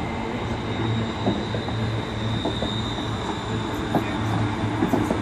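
ScotRail Class 380 Siemens Desiro electric multiple unit running slowly past along a station platform as it pulls in, with a steady low hum, a steady high whine and occasional sharp clicks from the wheels.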